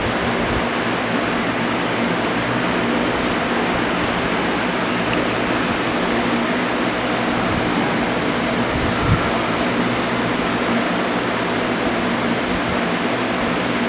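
Stone-carving CNC router running: a steady mechanical whir and hiss with a low hum. There is one short knock about nine seconds in.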